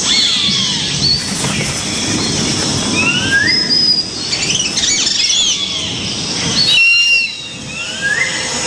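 Harpy eagle calling: a thin, high whistling cry repeated every second or so, each sliding in pitch. Under it is a low rustling that stops about two seconds before the end.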